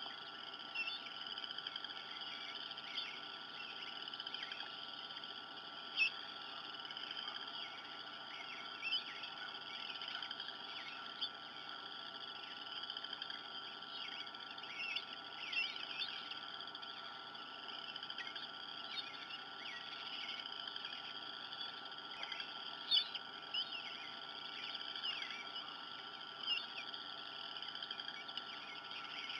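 Outdoor ambience: a steady high-pitched background chorus with short bird chirps scattered over it, a few of them louder.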